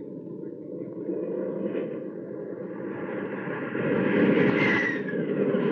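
Airplane engine sound effect of a fighter making a pass: a steady engine drone that swells louder about four seconds in, with a whine falling in pitch near the end as it goes by.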